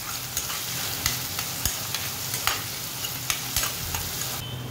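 Chopped onion and curry leaves sizzling in hot oil in a kadhai, with a steady hiss. The onion is being stirred, and sharp clicks of the spatula against the pan come about once a second.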